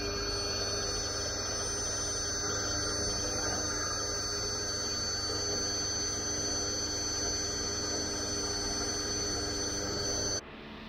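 Pressure washer running steadily, with a constant high whine over a low rumble; the sound drops off abruptly near the end.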